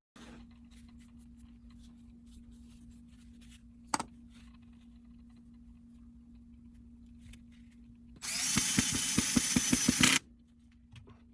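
Power drill running for about two seconds near the end, boring a hole in a packed sand casting mold, with a rapid pulsing under it and a sudden stop. Before it, faint scraping and one sharp click over a steady low hum.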